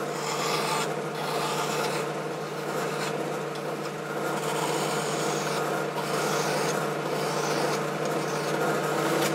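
Hand file scraping against a small metal part spinning in a lathe, deburring the sharp edges thrown up by knurling, over the steady hum of the lathe running.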